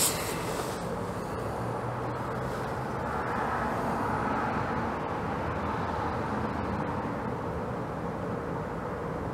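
Steady background noise, an even hiss and low rumble, with one sharp click right at the start.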